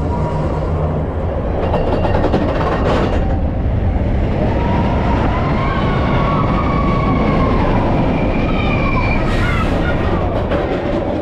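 Steel roller coaster train running loudly along its track, a steady dense rumble of wheels on rail. Faint higher tones rise and fall over it in the middle, with a couple of sharp knocks.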